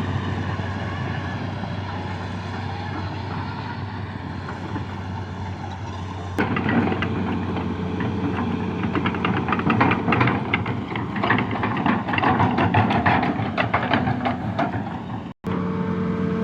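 Excavator diesel engine running steadily. About six seconds in, a loud irregular clanking and clattering starts, typical of an excavator crawling on its tracks, and goes on until the sound cuts out for an instant near the end. After the cut the engine hum goes on.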